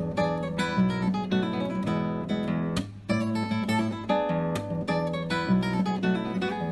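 Background music: acoustic guitar strumming chords at a steady pace, with a brief pause about three seconds in.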